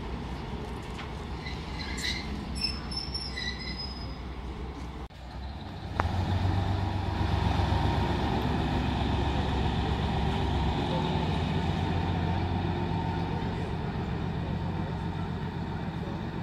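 Diesel engine of a 401Da shunting locomotive running with a steady low drone. About six seconds in it suddenly becomes much louder, then slowly fades as the locomotive pulls away down the track.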